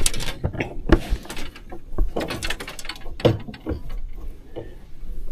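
Irregular knocks, taps and rustles as a crappie is handled aboard a bass boat, with a few sharper knocks among them.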